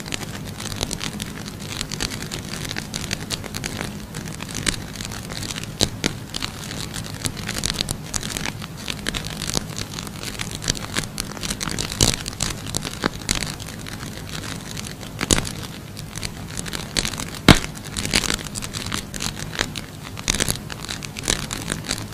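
Safety matches burning in a pile: a steady rushing fire with frequent sharp crackles and pops, one especially loud pop about seventeen seconds in.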